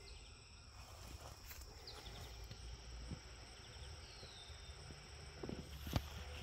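Quiet yard ambience with soft footsteps and rustling, in a short cluster near the end that includes one sharp tap; faint high chirps sound in the background.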